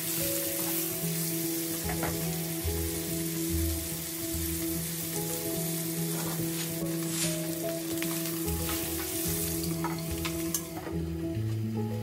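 Wagyu steak sizzling steadily in hot fat in a frying pan, searing, with a few light clicks.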